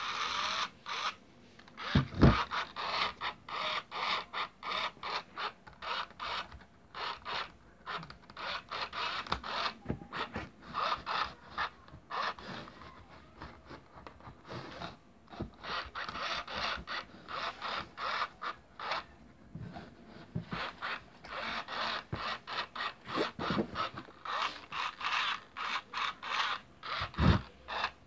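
Furby toy's internal motor and gears creaking and scraping in quick, irregular bursts as it is stroked and moves. Two low handling thuds, about two seconds in and near the end.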